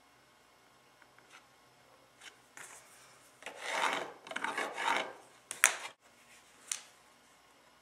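A few rough rubbing strokes against wood, followed by two sharp clicks near the end.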